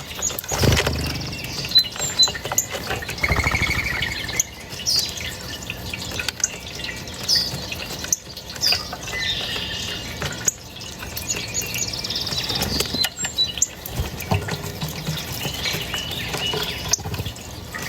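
Small birds chirping and calling over a steady wash of running water. Louder, lower-pitched sounds come about a second in and again near three and a half seconds.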